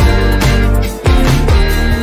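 Background music with a steady beat and bass line, dipping briefly about halfway through.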